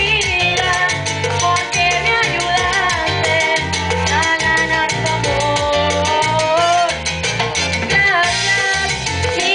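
Salsa-style Latin music played loud: a male singer over backing music with a pulsing bass line and a quick, steady percussion beat.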